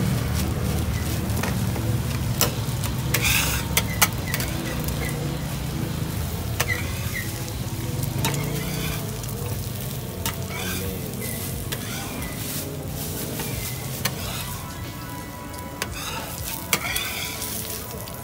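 Egg and patties sizzling on a flat-top gas griddle, with sharp scrapes and taps of a metal spatula on the griddle plate as the egg is folded into a wrap.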